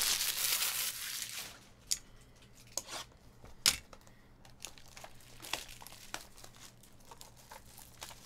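Clear plastic shrink-wrap crinkling and tearing as it is peeled off a sealed trading-card hobby box. A long rustle in the first second or so gives way to scattered sharp crackles.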